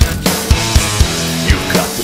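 Rock song in an instrumental passage with no singing: a full band mix with a steady drum beat, the bass drum striking every quarter to half second.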